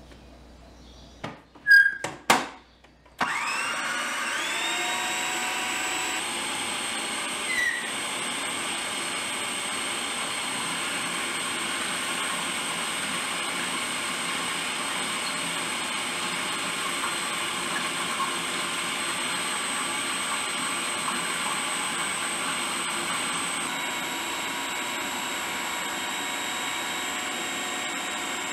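A few sharp clicks and knocks, then about three seconds in a food processor motor starts, its whine rising briefly as it spins up, and runs steadily while oil is drizzled in to emulsify the dip.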